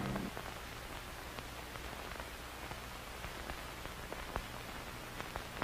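Steady hiss with a low hum and a few faint clicks, the surface noise of an old film or broadcast soundtrack. The last of the closing music dies away at the very start.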